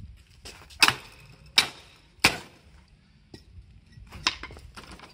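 Three hard axe blows on the metal of a scrap motorcycle frame, about two-thirds of a second apart, each a sharp crack with a short ring. Lighter knocks follow near the end as the parts are handled.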